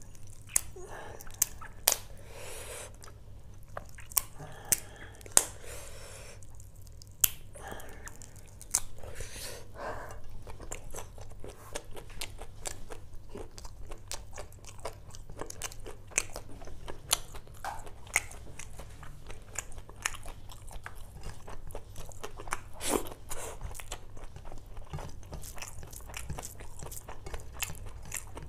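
A person chewing and biting into curried prawn, fish and rice eaten by hand, close to the microphone: a few sharp, loud clicks in the first several seconds, then a dense run of small clicks from about nine seconds on.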